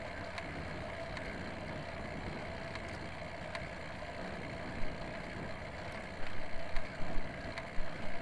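Steady wind and rolling noise from riding a road bike in a race pack, with irregular louder gusts in the last couple of seconds.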